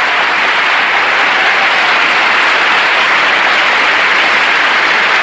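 Large theatre audience applauding steadily: dense, continuous clapping that does not let up.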